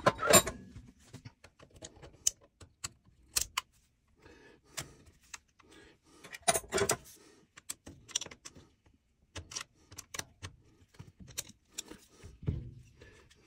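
Scattered metallic clicks and clinks of small steel parts being handled: the Allen-head hold-down studs being worked into the milling table's T-slot, with a cluster of clinks about halfway through.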